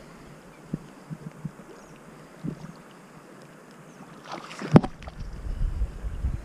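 Soft steady hiss of wind and river water with a few faint ticks, then a sharp knock about three quarters of the way through, followed by a low rumble of wind and handling noise on the microphone.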